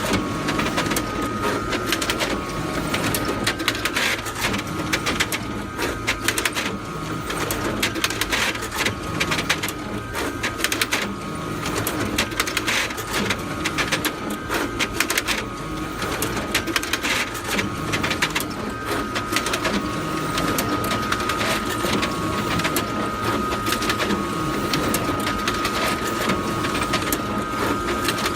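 Photocopier running continuously: a steady mechanical whir with a constant high hum and a dense clatter of clicks from the paper feed and rollers.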